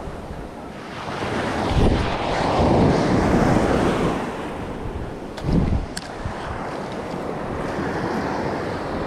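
Small ocean waves breaking and washing up a sandy beach, the surf swelling to its loudest about two to four seconds in, with wind buffeting the microphone in gusts. A few light clicks about five to six seconds in.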